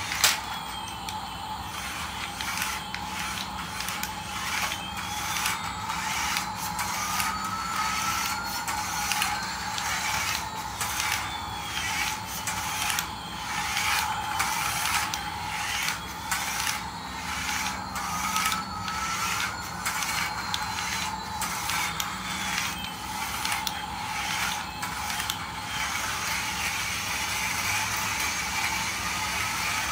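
Toy Airbus A380 plane driving across a tiled floor: its motor and plastic gears whirring with rapid clicking, with a sharp click at the very start. A slow rising-and-falling tone repeats every several seconds.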